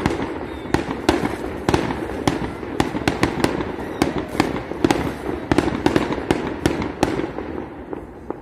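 Aerial fireworks going off: a rapid, irregular volley of bangs and crackles, several a second, thinning out near the end.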